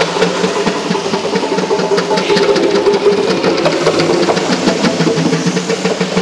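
Ensemble of African hand drums, djembes and tall barrel drums, playing a fast, dense rhythm of rapid strokes.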